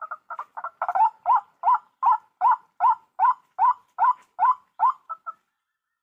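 White-breasted waterhen (ruak-ruak) calling: a run of short notes, each rising then falling, quickening at first and then steady at about two and a half a second, stopping about five seconds in.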